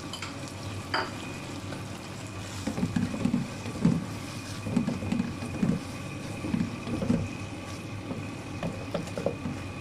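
Wooden spatula stirring and scraping beef strips, onions and peppers around a wok, working in cornflour to thicken the sauce. Irregular scraping strokes start about three seconds in, over a steady low hiss.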